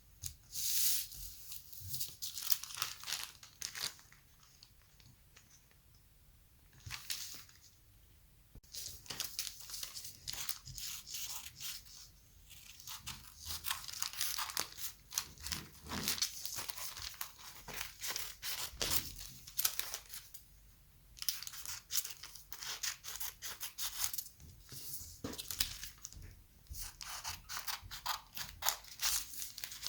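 Paper and tape being worked by hand for homemade stickers: a dense run of crisp, scratchy crackling and snipping-like noises, with a few seconds' pause about four seconds in and a shorter one about twenty seconds in.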